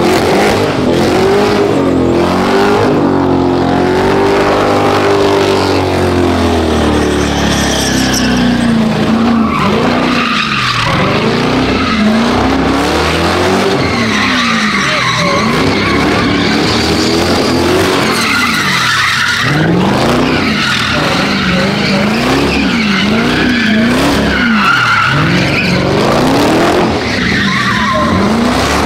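A car engine revving hard with its tires squealing and skidding, as in donuts or a burnout. The engine pitch swings up and down repeatedly, slowly at first and then about once a second in the second half.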